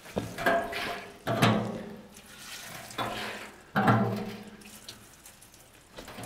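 Petrol poured from a metal jerrycan into the upright pipes of an iron barrel-built roadster, splashing and glugging in about four short pours, flooding each of its eight 'cylinders' with fuel before lighting it.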